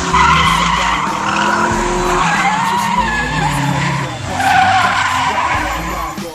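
Drift car sliding past with its tyres squealing and its engine revving up and down. The squeal wavers in pitch and peaks about four and a half seconds in, then fades near the end.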